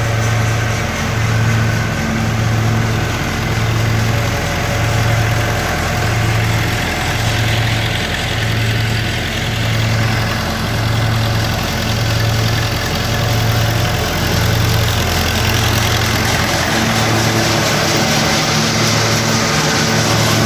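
Machine engine running steadily, its low hum swelling and fading about once a second; near the end the throb settles into an even drone.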